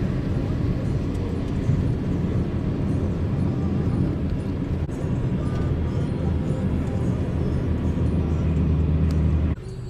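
Steady low rumble of a vehicle's engine and road noise on a highway, which cuts off abruptly near the end.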